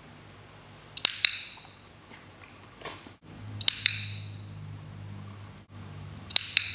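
Hand-held dog-training clicker pressed three times, each press a sharp double click, about two and a half seconds apart. Each click marks the moment the dog accepts a hand wrapped around its collar, signalling that a treat is coming.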